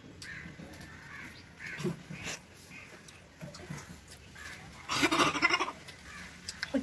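Boys making short muffled vocal sounds while holding sour lemon in their mouths, then a louder, wavering vocal outburst about five seconds in.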